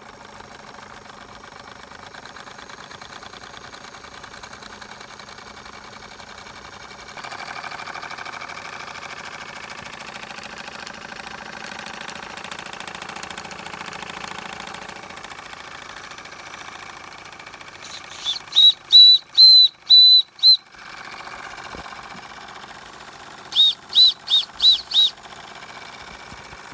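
Wilesco model steam engines running under steam, a steady hissing chuff of small cylinders and spinning flywheels. Over it, a steam whistle gives two sets of short, high toots, five or six in a row, about two-thirds of the way in and again near the end.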